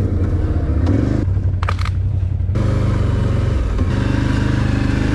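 ATV engine running under way, a steady low engine drone, with the sound changing abruptly twice in the first half.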